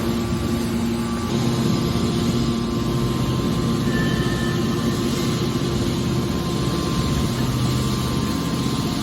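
Metal scrap baler running: a steady mechanical drone with a low hum that grows a little stronger about a second in.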